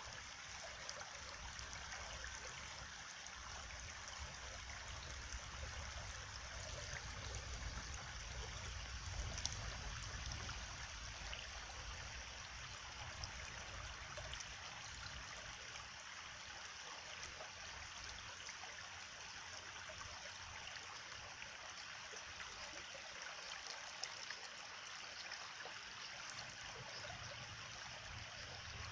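A stream running steadily, water trickling and babbling over stones, with a low rumble that swells for a few seconds early in the middle.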